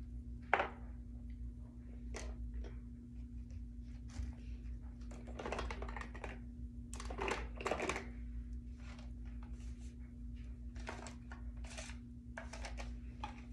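Irregular clicks, taps and rustles of small plastic makeup containers being handled and set down, with a few denser clusters midway, over a steady low hum.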